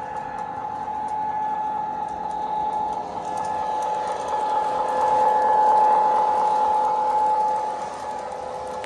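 Toy electric train running on three-rail track: a steady motor whine with light clicking from the wheels, growing louder as the train passes close about five seconds in and easing off near the end.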